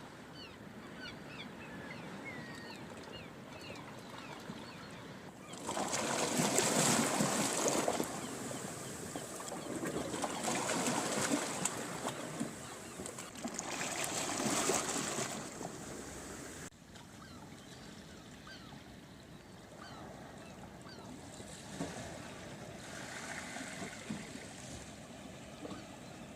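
Sea waves washing onto the shore: loud surf in three surges through the middle that cuts off suddenly, with quieter wash before and after. Faint bird calls chirp near the start.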